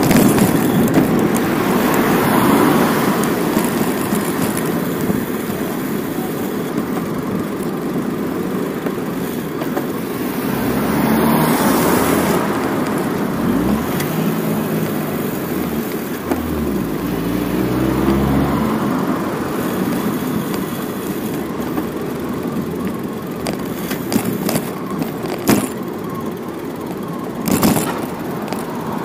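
Road traffic noise, a steady wash of passing cars. About halfway through, one motor vehicle's engine is heard passing, its note changing pitch in steps. A few sharp clicks come near the end.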